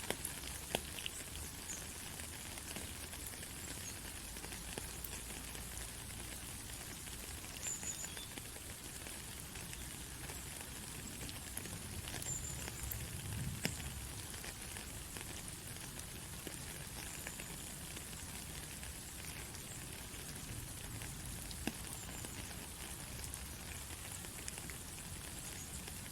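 Steady rain falling, with many small drops ticking and pattering on a surface.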